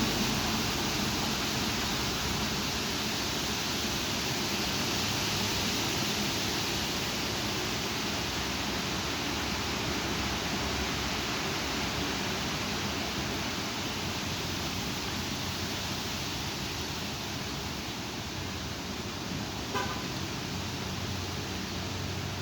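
Strong thunderstorm wind rushing and buffeting the microphone with a steady loud hiss and an uneven low rumble. A brief short tone sounds near the end.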